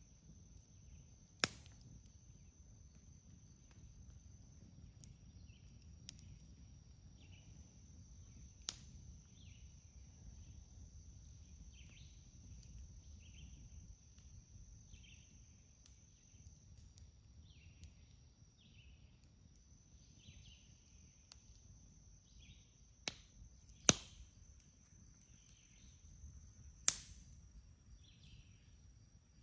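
A few sharp, isolated pops from burning wood in a campfire: one near the start, one about nine seconds in, and a loud cluster late on. Behind them a steady high insect buzz with brief breaks, and repeated short chirps.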